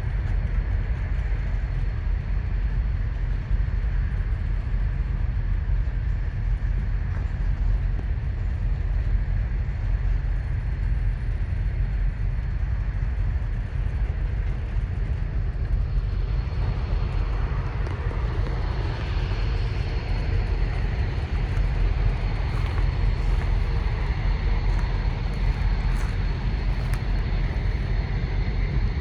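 Low, steady rumble of a slow-moving rail work train going by, with a thin high steady tone over it; the noise grows fuller and brighter about two-thirds of the way through.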